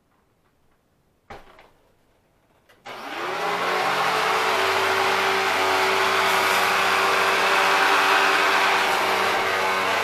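A knock, then about three seconds in a Hoover WindTunnel upright vacuum cleaner switches on. Its motor spins up within a second to a steady running whine with several held tones over a rushing hiss as it vacuums a rug.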